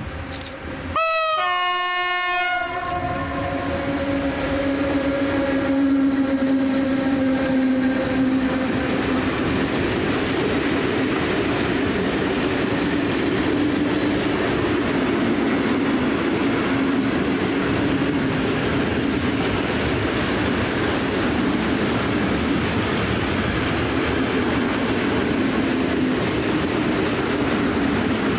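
EU07 electric locomotive sounding its horn about a second in as it passes. The horn's pitch drops as it goes by and it fades out over several seconds. The steady rumble and wheel clatter of a long train of open freight wagons rolling past follows.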